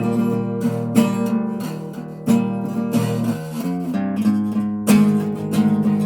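Acoustic guitar strumming chords, a new chord struck about once a second and left ringing.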